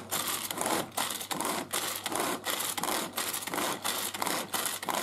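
Tupperware pull-cord manual chopper being pulled over and over, its blades spinning through garlic, parsley and olive oil: an even run of mechanical strokes, about two to three a second.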